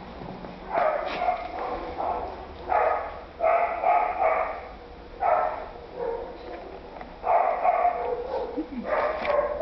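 A dog barking over and over, each bark short, with a second or so between barks and a few barks run together in quick pairs.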